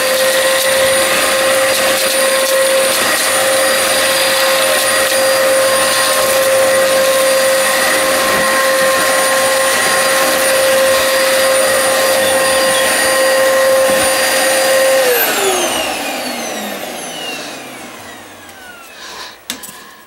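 Hoover Sprint Quickvac upright vacuum running with a steady whine while pushed across a bench, its hose connected to the floor nozzle. About 15 seconds in it is switched off and spins down, the pitch falling as it fades, followed by a few clicks of handling.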